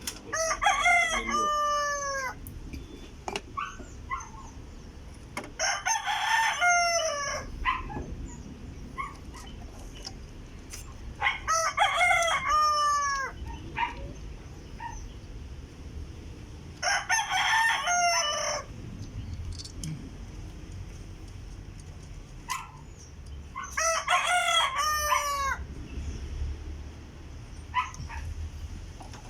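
Rooster crowing five times, each crow about two seconds long, every five to six seconds.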